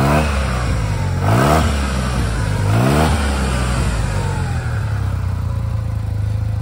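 Yamaha TMAX 560's parallel-twin engine through an Akrapovic titanium exhaust, blipped three times from idle about a second and a half apart, each rev rising and falling quickly, then settling back to a steady idle.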